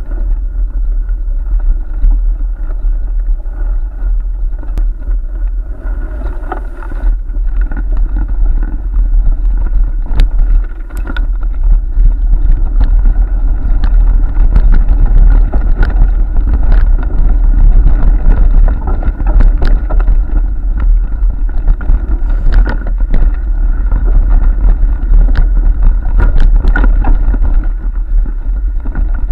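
Rumble and rattle of a point-of-view camera jolting down a bumpy forest trail, with wind buffeting the microphone and many sharp knocks as it hits bumps.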